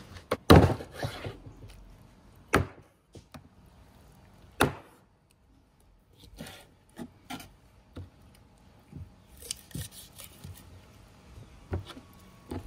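Knife chopping on a wooden cutting board: a few separate heavy chops about two seconds apart, the loudest about half a second in, followed by lighter knocks and clatter.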